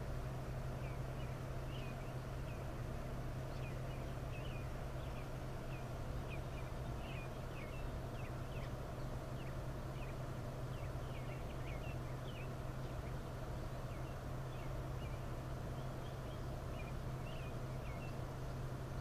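Birds chirping in short, quick high notes over a steady low hum.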